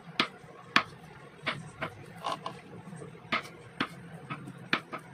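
Kitchen knife cutting a block of firm tofu into cubes on a wooden cutting board: sharp taps of the blade striking the board, about two a second and unevenly spaced.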